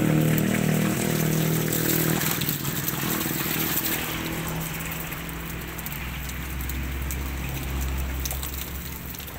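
Masses of catfish thrashing in shallow water, a wet splashing and pattering. A motor hums steadily over it for the first two seconds or so, then gives way to a lower, fainter drone.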